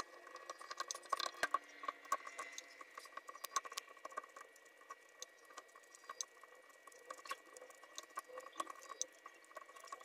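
Silicone spatula stirring and pressing wet soap flakes in a stainless steel bowl, working them into a paste: faint, irregular soft scrapes and small wet clicks, over a faint steady high tone.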